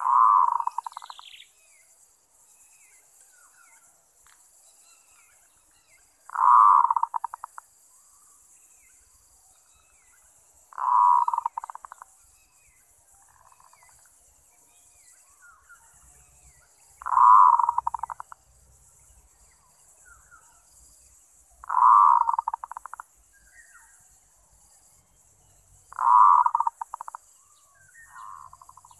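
Zebra dove (merbok) cooing its song six times, every four to six seconds: each call is about a second of fast, staccato notes that starts strong and fades.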